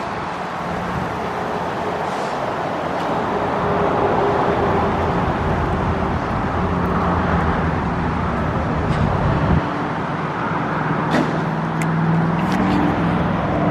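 A motor vehicle engine running steadily with a low hum, over road traffic noise, with a few light clicks near the end.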